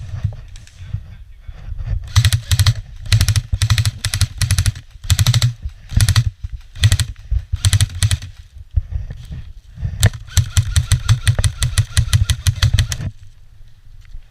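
Airsoft guns firing on full auto: a string of short bursts of rapid clicking shots, then one long burst of about three seconds near the end.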